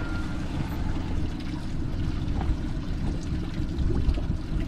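Water lapping and trickling against the hull of a small fishing boat, over a steady low rumble.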